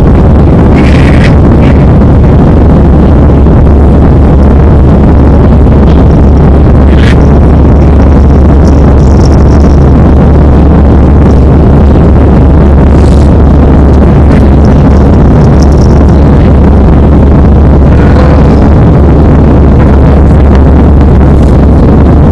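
Airbus A319 cabin noise in the climb after takeoff: the jet engines and rushing air make a steady, heavy rumble. It is distorted by an overloaded microphone.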